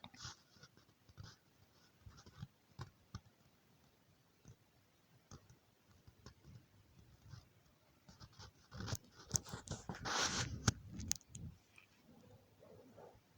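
Faint scratching and light clicks of fine inductor wire being scraped so it will make contact with the screen, with a louder stretch of scraping about nine seconds in that lasts two or three seconds.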